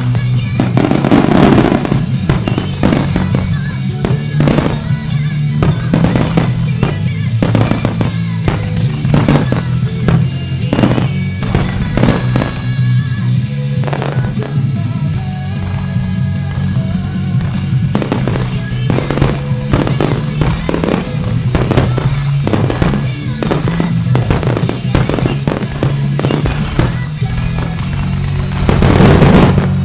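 Starmine fireworks barrage: many sharp bangs and crackling bursts in quick succession, heavier near the end, over loud music played over loudspeakers.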